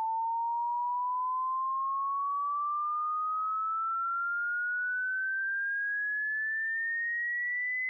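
Hearing-test sweep: a single pure electronic tone rising slowly and steadily in pitch, at an even loudness.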